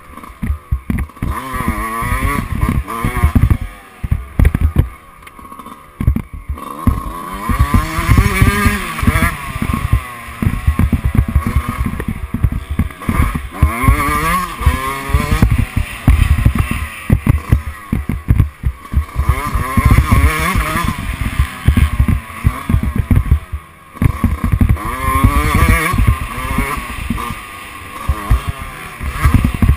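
Dirt bike engine revving hard and easing off again and again, its pitch climbing and dropping with the throttle and gear changes, under heavy wind buffeting and knocks on the mounted microphone.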